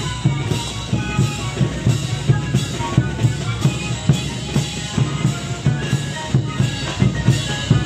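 A marching festival band playing: bass drums and snare drums keeping a steady beat, with a melody line over them.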